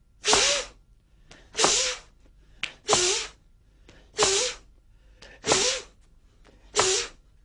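Six sharp, forceful exhalations with a short voiced grunt in each, about one every 1.3 seconds: the combat breathing of the Emei Paida Gong self-slapping exercise, a breath pushed out with each strike.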